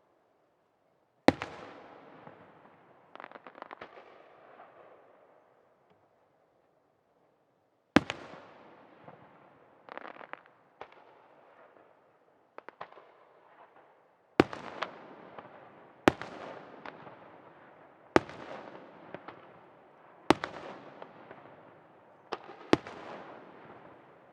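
Aerial firework shells bursting one after another, about eight sharp bangs at uneven gaps, each trailing off in a long fading echo. Short spells of small crackling pops come between some of them.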